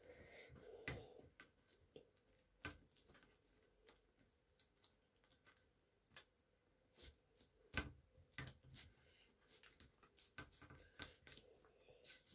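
Faint, scattered clicks and crinkles of a plastic toothpaste tube being pressed flat and rolled up by hand on baking paper, with a few sharper clicks.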